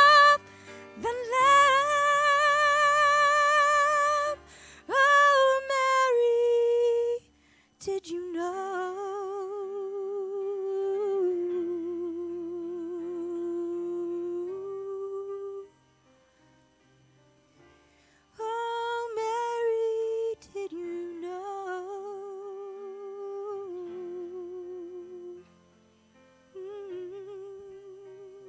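A woman's voice holding long, wordless notes with vibrato to close the song: loud and high for the first few seconds, then softer and lower, like humming, with a few short pauses between phrases.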